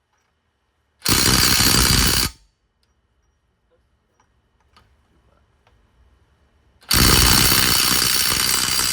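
Impact wrench hammering in two bursts: one about a second in lasting about a second and a half, and a longer one of about two seconds near the end, with a few faint clicks between them.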